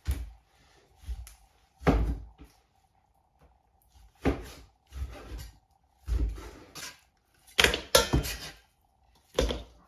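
Kitchen work: a string of about ten sharp knocks and clatters at irregular intervals, with short quiet gaps between them.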